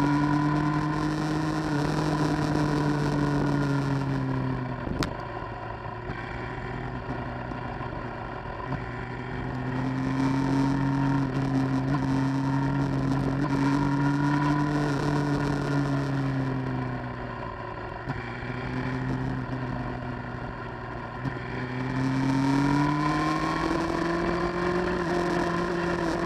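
Motorcycle engine on a downhill ride: its note drops back twice as the throttle closes and rises again as it pulls away, climbing steadily near the end.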